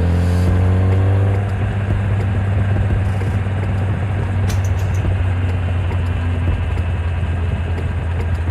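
2013 Kawasaki ZX-10R inline-four engine heard on board while riding. Its note rises under throttle for about the first second, then the bike eases off into a steadier, rougher drone for the rest.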